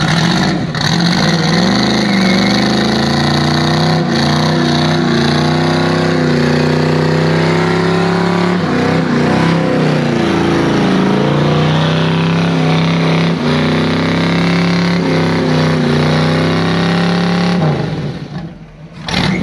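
Car engine held at high revs through a burnout, the revs wavering up and down over a loud hiss of spinning tires. The engine drops off a couple of seconds before the end.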